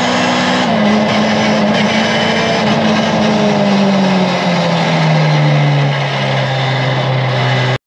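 Mercedes 190E 2.3-16's 16-valve four-cylinder engine heard from inside the rally car's cabin, its revs falling steadily for about five seconds and then holding at a low steady note, over road and tyre noise. The sound cuts off abruptly near the end.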